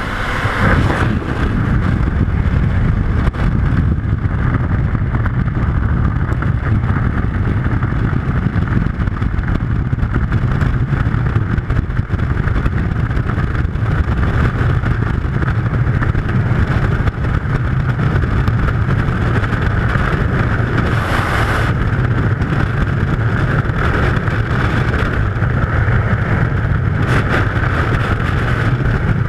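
Freefall wind rushing loudly over the camera's microphone, a steady, dense rush of air. About a second in it takes over from the aircraft's engine noise at the open door as the skydivers exit.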